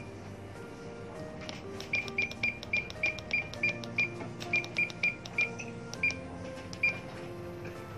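Furuno GP-32 GPS navigator's key beep sounding with each press of its cursor pad: a run of about fifteen short, identical high beeps, each with a click, about three a second, as letters are scrolled for a waypoint name. Background music with sustained notes plays throughout.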